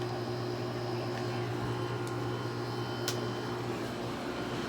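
Haier 5200 BTU window air conditioner running while it cools: a steady hum from fan and compressor over a rush of moving air. Two faint clicks about two and three seconds in.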